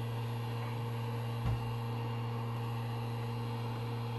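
A steady low electrical hum, with one soft low thump about a second and a half in.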